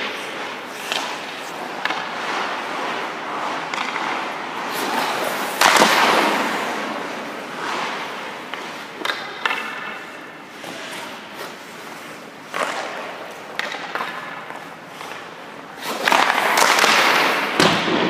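Hockey skate blades scraping across the ice as a goalie pushes and stops, loudest in two long scrapes about six seconds in and near the end, with scattered sharp knocks.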